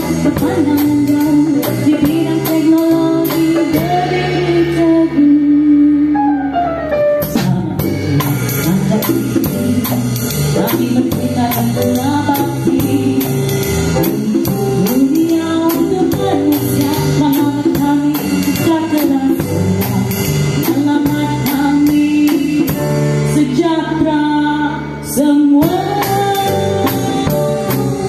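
Live band playing a song with a vocalist singing the melody, and a drum kit keeping time with steady cymbal strokes.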